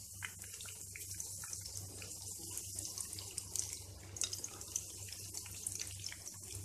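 Palak pakoras (spinach and gram-flour fritters) sizzling and crackling as they deep-fry in hot oil on a high flame.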